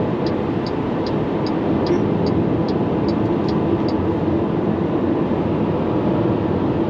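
Steady road and wind noise inside the cabin of a Maxus e-Deliver 7 electric van cruising at about 120 km/h. Over it the turn-signal indicator ticks about two and a half times a second for a lane change, stopping about four seconds in.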